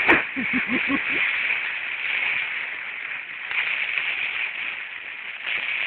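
Steady hiss of rain. There is a sharp knock just after the start and a few short low sounds in the first second.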